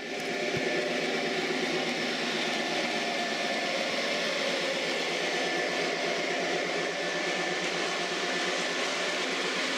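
MTH Premier O-scale CSX AC4400CW model locomotive running, its Proto-Sound 3.0 speaker playing a steady diesel engine sound over the motor and wheel noise on the track.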